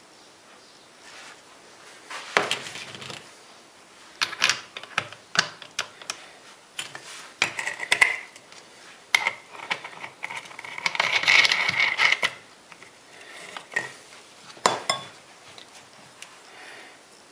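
Metal parts of a Makita angle grinder clinking, knocking and scraping as they are handled and fitted, in irregular short bursts with a longer scrape about eleven seconds in.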